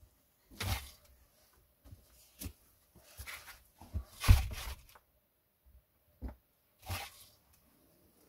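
Scattered rustles, scrapes and knocks of a man moving through a narrow log doorway and handling a log, with one louder knock about four seconds in.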